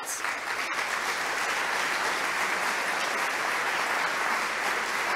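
Audience in a hall applauding steadily, a dense even clapping that starts at once and keeps up throughout.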